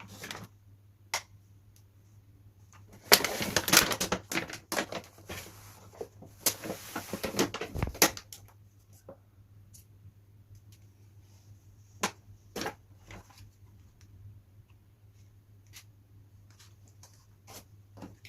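Plastic toy kitchen pieces and their packaging being handled: scattered clicks and knocks, with two stretches of rustling and clattering about three and six seconds in.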